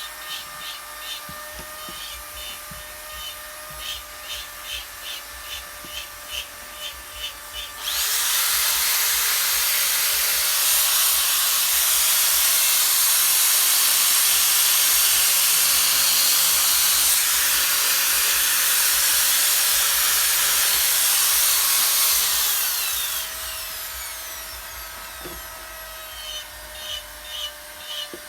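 Electric power sander working a carved wooden bird. A steady motor whine runs under quick, rhythmic scraping strokes. About eight seconds in a much louder continuous sanding hiss sets in and lasts some fifteen seconds, then the short strokes return.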